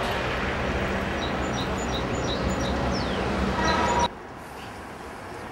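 Steady outdoor noise with a strong low rumble and a few short high chirps. It cuts off abruptly about four seconds in, leaving a quieter background.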